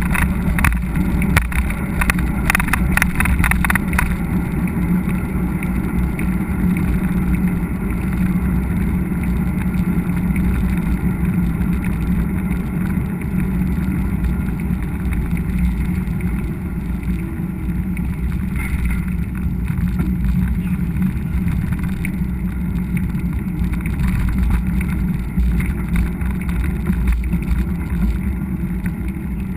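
Steady rumble of wind and tyre noise picked up by a GoPro while riding a mountain bike on a trail, with a run of rattling clicks about two to four seconds in.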